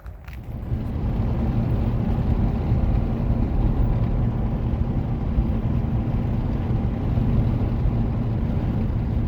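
A vehicle driving: a steady low rumble of engine and road noise that swells over the first second, then holds level.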